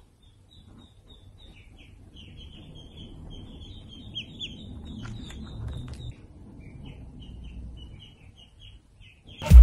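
Duckling peeping: a steady string of short, high peeps, some falling in pitch, with a few brief pauses. Loud music cuts in abruptly at the very end.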